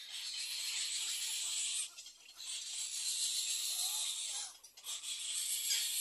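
Little egret chicks giving harsh, hissing begging calls in long bouts, broken by short pauses about two seconds and nearly five seconds in.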